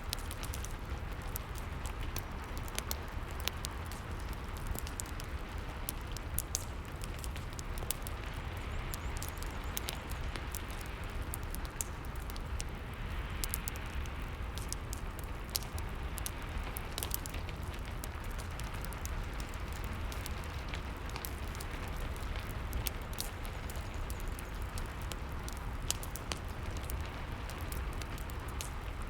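Rain falling steadily, mixed with a crackling fireplace: an even hiss over a low rumble, dotted with frequent sharp crackles and pops.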